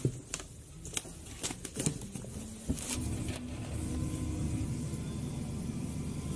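Food packages handled and set into a cardboard box: a few sharp knocks and rustles in the first three seconds, over a low rumble that settles into a steady hum.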